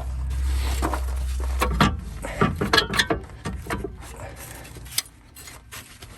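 Metal clinks and knocks of brake shoe rollers and hand tools being worked loose on a heavy drum brake, coming in a run after a low rumble that lasts about two seconds.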